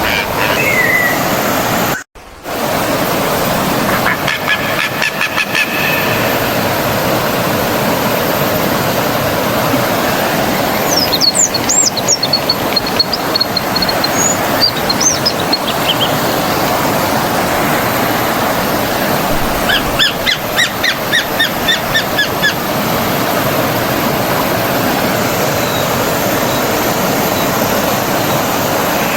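A flowing stream runs steadily, with birds calling over it at intervals: bursts of rapid repeated calls about four and twenty seconds in, and higher chirps in between. The sound cuts out for a split second about two seconds in.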